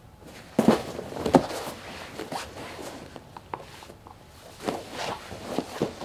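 Two grapplers rolling through a sweep on a training mat: scattered thuds and scuffs of bodies, skin and rash guards on the mat, the loudest thumps coming between about half a second and a second and a half in, with a few more near the end.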